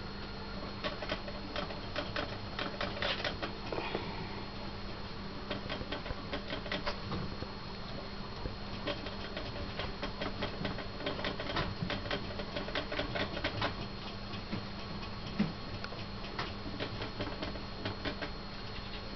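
Long-haired Syrian hamster scrabbling on the plastic mesh lid of a transport box: irregular runs of light clicks and ticks from its claws on the grid, with one sharper click about 15 seconds in.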